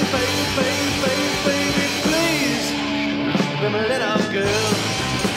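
Punk rock band recording: electric guitars, bass and drums playing at a steady loud level, with a lead line that bends in pitch over the top.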